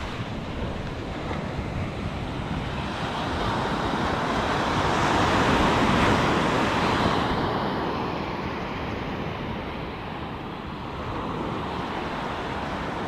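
Ocean surf breaking and washing up a sand beach, with wind buffeting the microphone. The wash swells to its loudest about halfway through, then eases off.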